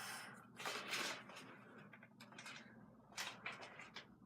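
Faint scattered handling noises, a few soft clicks and rustles, from a jammed Nerf blaster being fiddled with.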